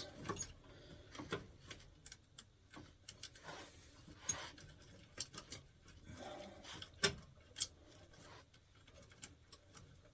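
Irregular light clicks and taps of small hand work at a furnace control board: thermostat wires and terminals being handled as the Y wire is moved over to the new board.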